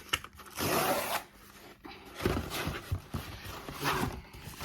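A mail-order parcel being handled and opened: a loud burst of rustling packaging about half a second in, then scattered knocks and rubbing as the contents are dug out.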